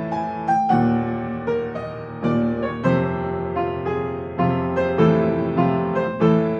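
Piano music playing a slow melody of separately struck notes, each ringing and fading.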